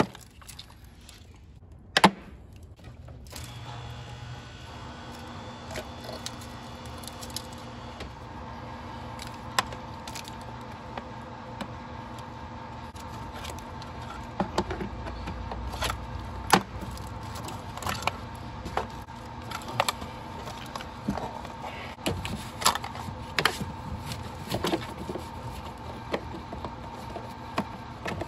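Scattered short plastic clicks and snaps as a trim removal tool pries plastic rivets and wiring-harness clips off a plastic intake manifold cover, over a steady hum that sets in about three seconds in.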